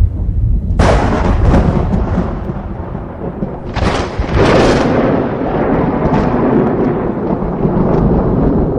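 Thunder: a continuous deep rumble broken by two sharp cracks, one about a second in and a double one about four seconds in, each rolling away into rumble.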